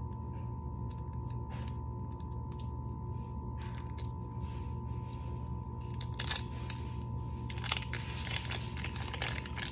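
Small clear plastic bag crinkling and being torn open by hand: scattered crackles and rips that get busier in the second half. A steady electrical hum runs underneath.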